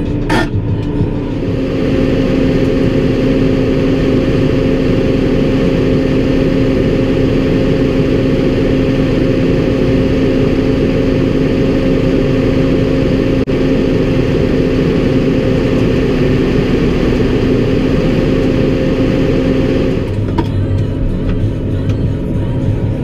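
Tractor engine running steadily under throttle, a loud even drone that settles in about a second in and drops to a lower, rougher note near the end.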